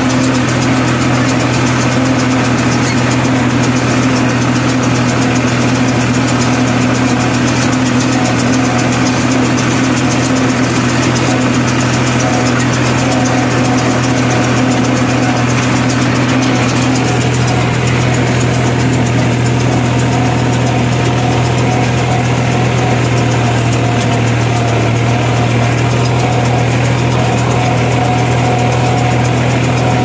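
Small tractor's diesel engine running steadily, driving a mini round baler through its PTO shaft, with the baler's machinery turning. The tone shifts slightly about halfway through.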